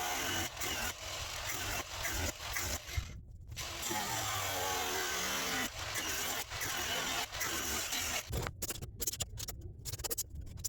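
Power tool working a piece of plastic, a steady hissing run with a few brief breaks, stopping about eight and a half seconds in and followed by light clicks and handling.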